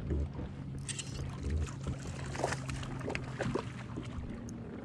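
A hooked smallmouth bass splashing at the surface beside the boat as it is reeled in and grabbed by hand, a string of sharp irregular splashes about a second in. A steady low hum runs underneath.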